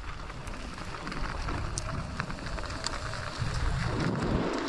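Wind buffeting a helmet-mounted GoPro's microphone while riding a mountain bike downhill, a rushing, rumbling noise that the rider calls really extreme. Scattered clicks and rattles from the bike on the trail sound through it.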